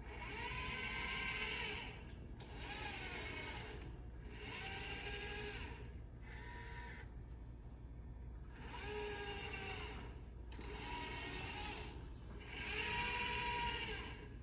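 Small robot arm's joint motors whining through a programmed sequence of moves. There are about seven separate movements, each a second or two long, and in each the whine rises in pitch as the move starts and falls as it slows.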